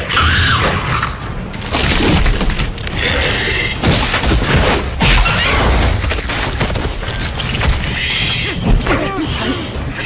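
Film sound effects of a monster attack: repeated heavy booms and crashing impacts over a continuous low rumble.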